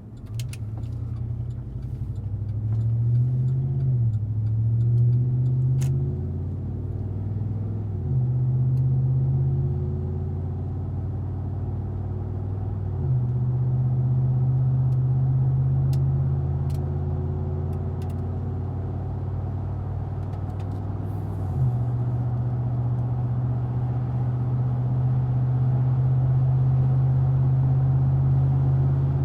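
Chevrolet Tahoe V8 exhaust through a Hooker Aero Chamber muffler, on stock manifolds with all three catalytic converters, pulling away under acceleration. Its pitch climbs and drops sharply at each of four upshifts, then holds steady at cruise for the last several seconds.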